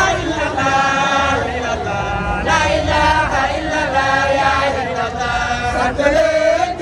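A group of voices chanting together in long held, sung notes.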